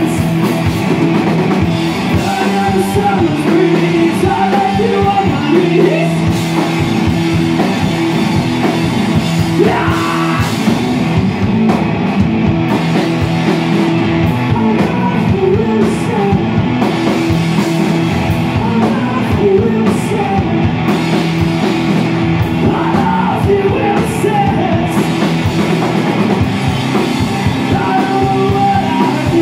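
Rock band playing live: electric guitar and drum kit, with a man singing over them.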